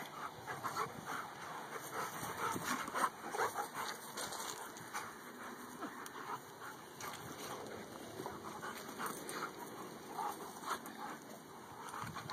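Two dogs play-fighting: panting and short irregular scuffling and mouthing noises as they wrestle.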